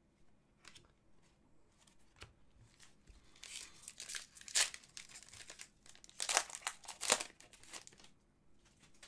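Crinkling and rustling of plastic trading-card packaging as hockey cards are handled, with a few faint clicks first and then several bursts in the middle, the loudest near the end.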